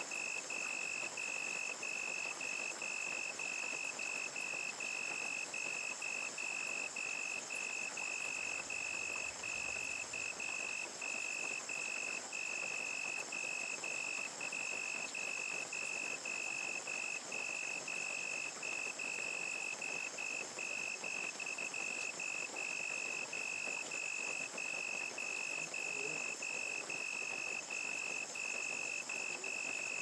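Crickets chirping in a steady, even rhythm of about two to three chirps a second, over higher continuous insect trills and a steady hiss of rain.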